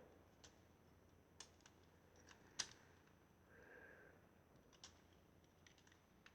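Faint, scattered clicks of plastic Lego pieces being handled and rotated at their hinges, about eight in all, with a soft brief rubbing of plastic a little past the middle.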